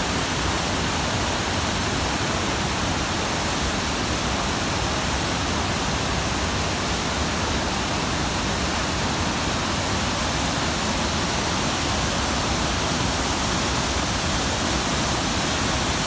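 A waterfall and its rapids rushing in a loud, steady, unbroken wash of water noise.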